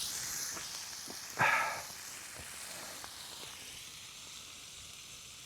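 Vegetables, whole chilies and spices sizzling in a frying pan, the hiss slowly dying down. A short higher-pitched sound comes about a second and a half in.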